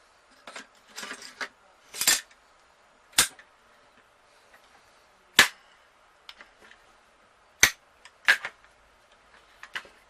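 Metal clicks and clacks from a Smith & Wesson M&P15 Sport II AR-15 rifle being reassembled after an aftermarket charging handle was fitted. There are five sharp, loud clacks one to two seconds apart, with lighter ticks between them.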